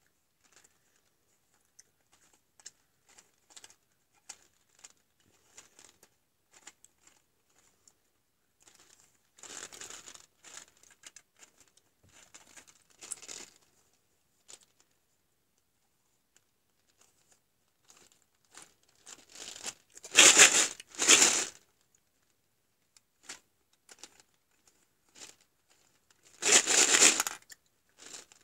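A small plastic toy gumball machine being handled: scattered light clicks, with a few short, louder rustling bursts, two close together about two-thirds of the way through and one near the end.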